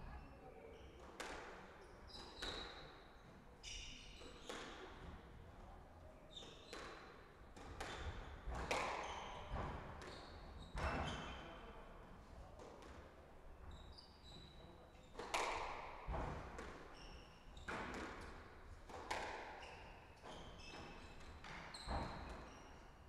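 Squash rally: the ball struck by rackets and hitting the court walls, irregular sharp hits roughly one a second, each with a short echo. Short squeaks of shoes on the wooden floor come between the hits.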